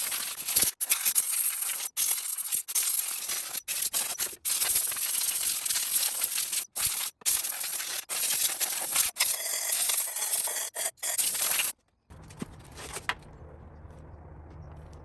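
Scratchy rubbing with small clinks from hands working on the engine's ignition coils, chopped by several abrupt cuts. After about twelve seconds it gives way to a quieter, steady low hum.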